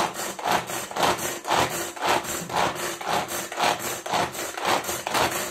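Hand-pulled string vegetable chopper whirring in quick, even strokes, about two a second, as its cord is yanked repeatedly to spin the blades inside the plastic bowl and chop vegetables.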